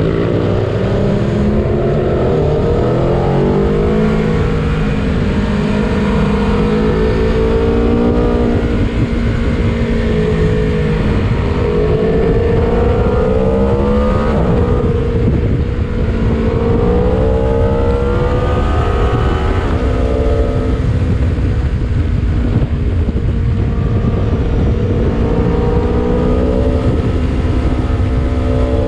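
Aprilia Tuono V4 Factory's V4 engine accelerating hard through the gears, its pitch climbing and then dropping back at each shift, over heavy wind rush on the microphone.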